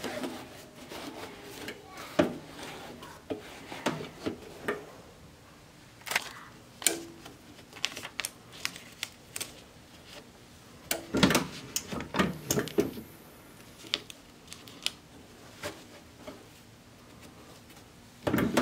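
Hands working a cap onto a hat heat press: scattered light clicks, taps and rustles of fabric and transfer film, busiest about eleven to thirteen seconds in.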